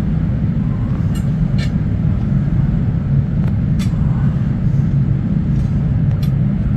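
Steady low rumble with a few light metallic clinks as forged iron tongs are picked up and laid down on the ground.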